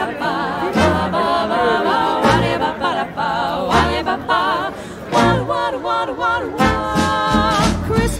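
Background music: a singing voice with a wavering vibrato over a beat, with low drum thumps about every second and a half.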